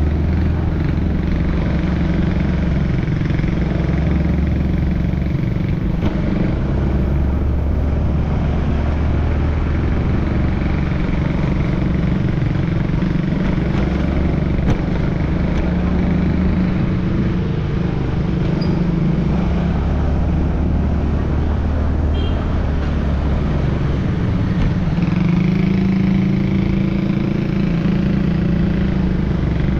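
Motor scooter engine running steadily, a low hum that shifts slightly in pitch now and then, over a constant rushing noise.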